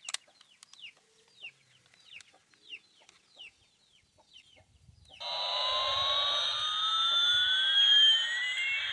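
Battery-powered bump-and-go toy Airbus A380 airplane switching on about five seconds in. Its electronic jet sound effect plays: a loud hiss with one whine rising and another falling in pitch. Faint short chirps come before it.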